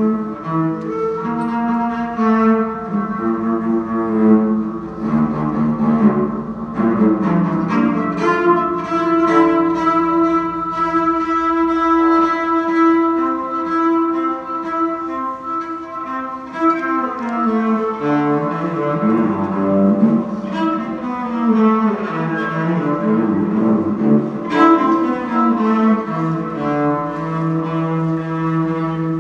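A cello bowed live, holding long notes that change every few seconds and slide between pitches in the middle stretch.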